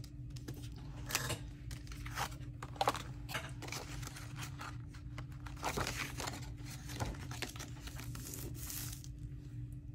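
Paper being handled at a craft table: short rustles and crinkles of sheets being moved and folded, with a longer rustle about eight seconds in, over a steady low hum.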